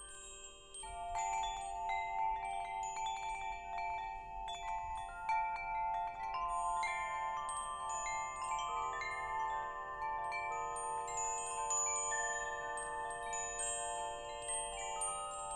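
Wind chimes ringing in an irregular cascade of strikes, many tones overlapping and ringing on. The chiming grows louder about a second in.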